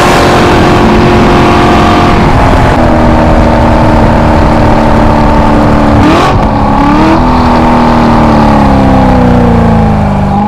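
A vehicle engine running loudly with a steady pitched drone; its pitch steps up about two and a half seconds in, dips and rises again around six to seven seconds, then falls slowly near the end.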